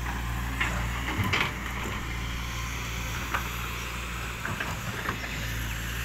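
SANY crawler excavator's diesel engine running steadily while it digs in mud, with a few short knocks scattered through.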